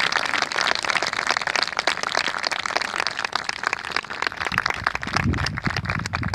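Crowd applauding, many hands clapping at once; the clapping thins out near the end.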